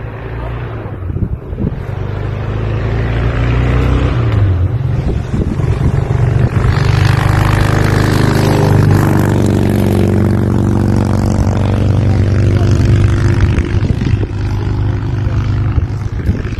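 A motor engine passing, running steadily, growing louder over several seconds, then easing off near the end.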